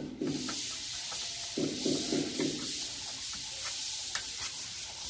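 Hand sanding of a white-painted eave soffit with sandpaper, a steady scratchy hiss.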